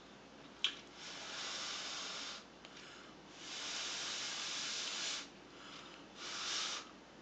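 A sharp click, then three long breathy hisses of exhaled air, the last one short.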